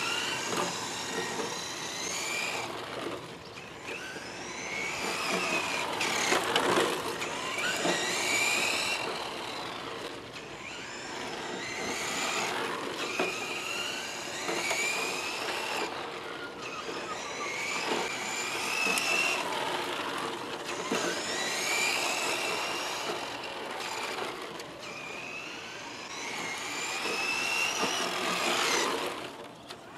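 Electric motor of a 1/10-scale Tamiya Ford Escort RS radio-controlled car whining, rising in pitch with each burst of throttle and falling away again, over and over as the car is driven back and forth.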